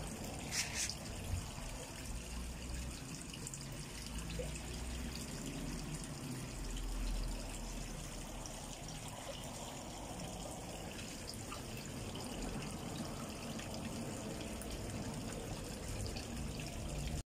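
Water flowing and trickling steadily in a small stream, with a low rumble underneath and a few short louder spikes in the first second and a half.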